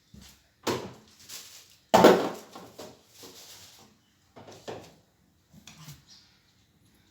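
Containers and fridge drawers or shelves knocking and sliding as food is put back into a refrigerator: a few separate clunks and scrapes, the loudest about two seconds in.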